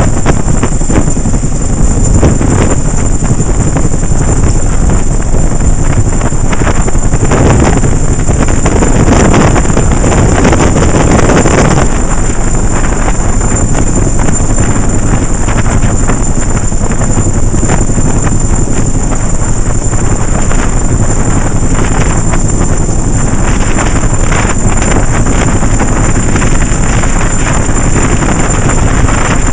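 CH-47D Chinook tandem-rotor, twin-turbine helicopter hovering low overhead: loud, steady rotor and engine noise with a steady high whine, its rotor downwash buffeting the microphone. The buffeting grows louder for a few seconds about a quarter of the way in.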